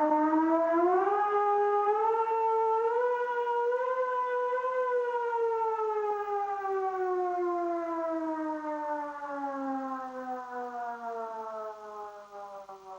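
Civil defense siren winding up in pitch during the first second, climbing slowly to its highest pitch about four to five seconds in, then winding steadily down. It fades toward the end.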